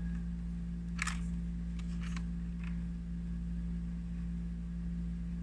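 A steady low background hum, with a short rustle about a second in and a few faint clicks around two seconds in as a plastic toy figure is handled and turned over.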